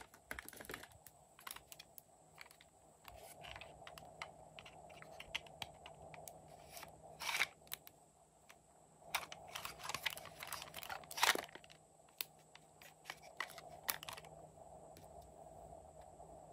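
Scattered small clicks and taps of a plastic toy makeup palette case being handled and opened, with a cluster of louder clicks in the middle.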